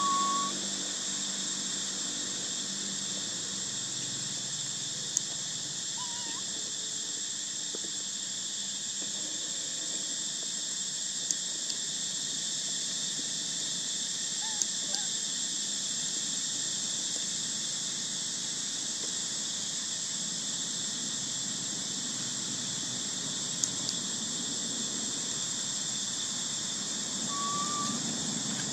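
Steady high-pitched drone of insects chirring in the trees, unbroken throughout. A short squeak comes just at the start and another near the end, with a few faint sharp ticks in between.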